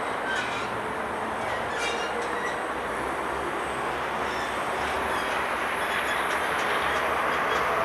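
Railway cars rolling with a steady grinding rumble, with a few short high-pitched wheel squeals in the first two seconds; the noise grows slowly louder toward the end.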